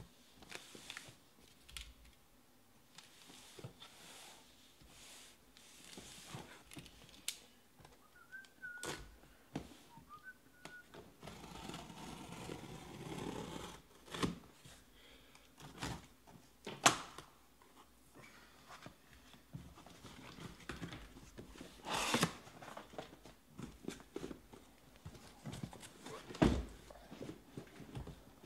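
A cardboard shipping case being handled and opened by hand: scattered knocks and thumps of cardboard, with a scratchy stretch about halfway through as the packing tape is slit, and a few sharper thuds as the case is shifted and lifted off the boxes inside.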